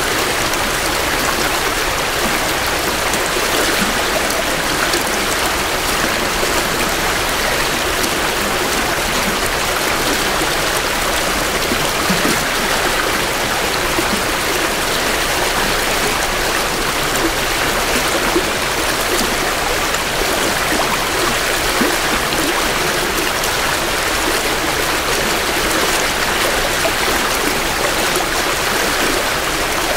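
A small creek running full with spring runoff, a steady close rush and babble of water over rocks.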